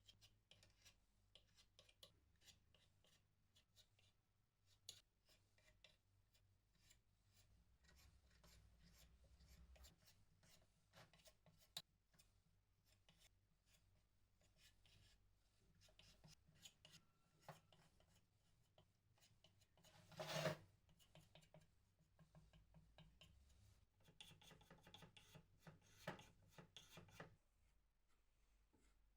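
Faint hand rubbing and scraping on wood, with scattered light clicks and ticks. There is one louder, brief scrape about twenty seconds in, and a denser stretch of rubbing a few seconds later.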